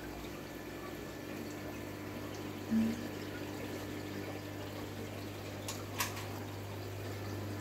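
Aquarium filters and aerators in rows of fish tanks: a steady hum with water trickling and bubbling. A brief louder sound comes just before three seconds in, and a sharp click about six seconds in.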